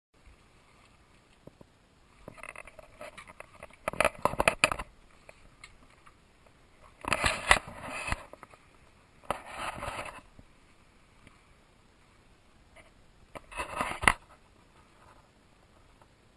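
Scraping and rustling noise in four short bursts full of small clicks, the loudest about four and seven seconds in.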